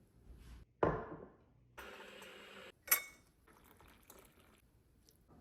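Kitchen containers being handled: a swish, some rustling, then a sharp clink of glass about three seconds in.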